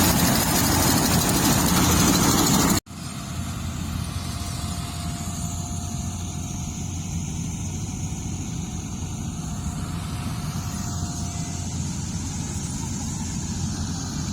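A machine engine running steadily. About three seconds in, the sound cuts off abruptly and is replaced by a quieter, steady engine sound with a faint whine.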